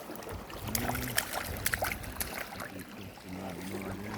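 Shallow water splashing and lapping, with scattered small splashes. A faint low voice murmurs in the background about a second in and again near the end.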